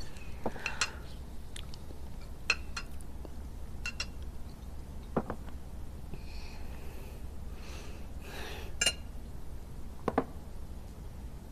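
Chopsticks and spoons clinking and tapping against ceramic bowls and plates as people eat: scattered light clinks about a second apart over a low, steady room hum.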